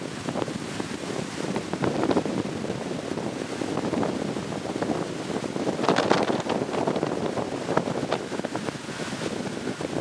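Tropical-storm wind buffeting the microphone in irregular heavy gusts, the strongest about six seconds in.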